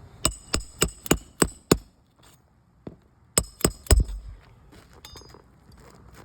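Hammer driving nails by hand, each blow ringing a little on the metal: a run of six quick strikes, about three a second, then after a pause one light tap and three more blows, the last the heaviest.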